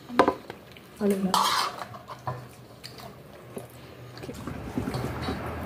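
Mealtime table sounds: a sharp clink of a utensil against a dish near the start, a short voice sound about a second in, then faint scattered clicks of dishes and hands at the plate.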